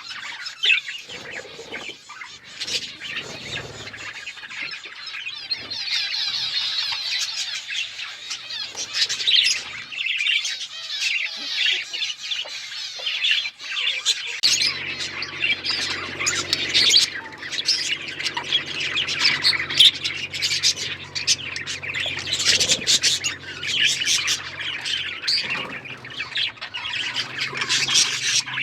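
A flock of budgerigars chattering, with many birds chirping and squawking over each other without a break. A low steady hum joins in about halfway through.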